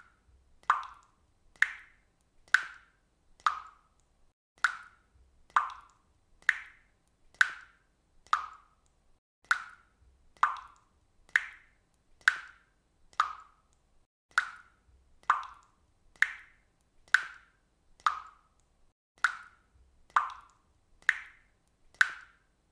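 Water dripping from a faucet, single drops falling in a steady rhythm of about one a second, each a short, sharp plop.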